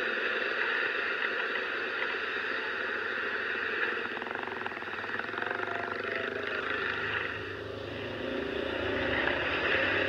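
Motor scooter moving slowly through busy street traffic: its engine running under a steady hiss of road and traffic noise.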